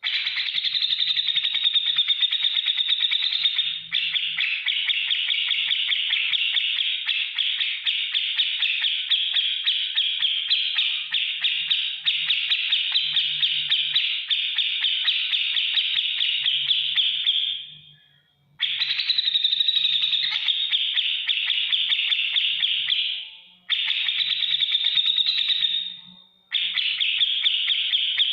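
Grey-cheeked bulbul (cucak jenggot) singing a rapid, ticking chatter in long unbroken runs. One run lasts about eighteen seconds, and three shorter runs follow, separated by brief pauses.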